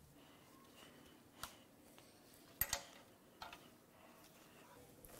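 A few faint, separate ticks over near-quiet room tone, as fluid drips from the upturned engine into a plastic drain pan.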